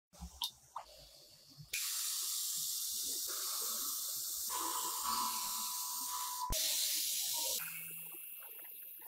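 Gravity-feed spray gun hissing as it sprays red paint onto a masked motorcycle fuel tank. The hiss starts about two seconds in after a few light clicks, and a steady whistling tone joins it midway. It cuts off with a click, and a quieter hiss trails on.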